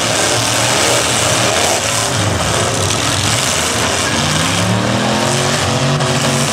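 Demolition-derby pickup trucks' engines revving hard over a loud, steady wash of engine noise, one engine's pitch climbing about four and a half seconds in.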